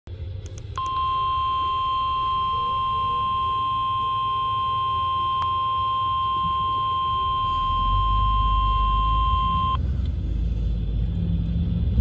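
A Midland NOAA weather radio's speaker sounds the steady 1050 Hz weather-radio alert tone for about nine seconds. The tone starts about a second in and cuts off suddenly; it is the tone that activates receivers for the weekly test. A low rumble runs underneath and grows louder near the end.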